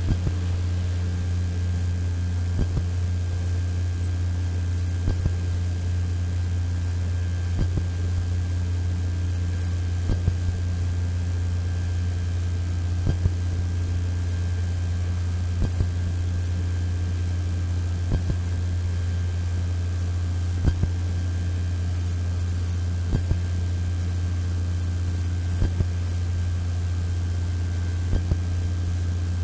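Commuter train running on jointed track: a steady low rumble, with a pair of sharp clicks from the wheels crossing a rail joint about every two and a half seconds.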